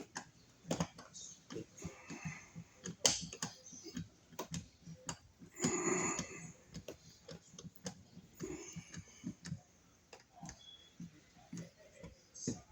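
Irregular small clicks, taps and scrapes of hand work on a wall outlet: metal and plastic outlet hardware and a screwdriver being handled, with a few brief louder scraping rattles.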